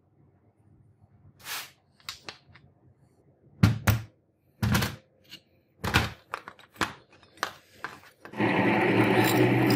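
Flat brass pieces knocking and clicking on a concrete surface as they are handled and laid down, several separate sharp knocks. A little over eight seconds in, a drill press starts running loud and steady, drilling steel.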